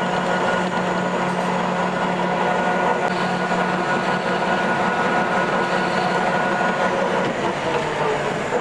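Metal lathe running steadily with a steady gear hum as the tool faces the end of a steel fuel hose fitting. Near the end the pitch falls as the spindle winds down.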